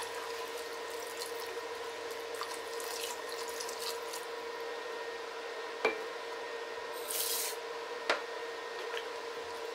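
Hot water pouring from a glass jug into a pot of chicken and chickpeas, stirred with a wooden spoon, over a faint steady hum. Two sharp knocks, about six and eight seconds in, as the spoon or jug touches the pot.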